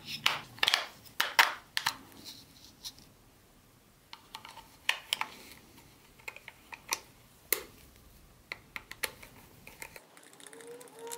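AAA batteries clicked into a plastic remote control's battery compartment, then the battery cover fitted and its screw turned with a screwdriver: a run of sharp plastic clicks and taps, quick and close together in the first couple of seconds, then scattered.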